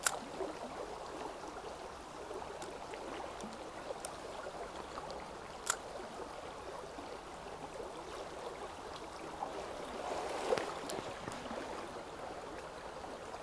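A shallow stream running steadily over stones, with a few short, sharp clicks scattered through it.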